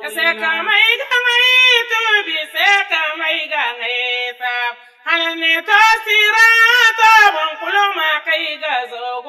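A high-pitched solo voice singing a chant-like melody in long, wavering held notes, with a short break about five seconds in.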